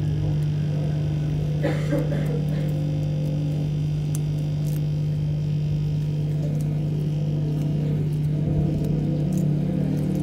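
Hot-air rework station blower running steadily, a constant low hum.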